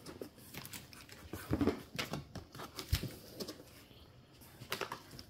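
Cardboard fireworks cakes and their shipping box being handled: scattered taps, knocks and rustles, with a low thud about three seconds in.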